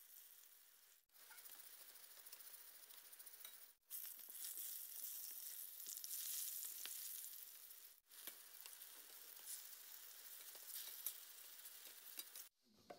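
Eggplant slices sizzling as they shallow-fry in hot oil in a stainless steel pan, a steady high hiss that cuts out briefly three times.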